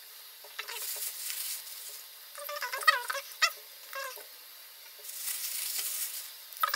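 Raw minced turkey squelching and squeaking wetly as it is squeezed and rolled into balls by hand, with crinkling of the plastic bag it is taken from.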